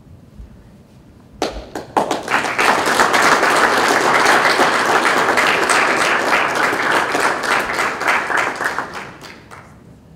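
Audience applauding: a few scattered claps about a second and a half in, then a full round of clapping that swells and fades out near the end.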